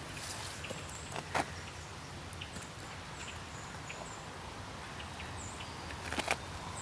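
Quiet outdoor ambience over a low steady rumble, with faint high-pitched bird chirps scattered through it and a couple of brief soft clicks, about a second and a half in and near the end.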